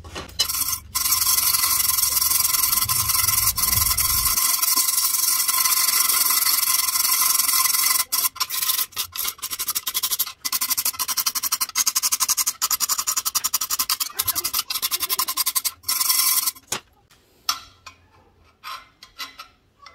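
Wire brush scrubbing an aluminium strip in fast back-and-forth strokes, cleaning the metal bright before it is joined with aluminium brazing rod. The scrubbing is loud and continuous, with two short breaks, then trails off into a few last strokes near the end.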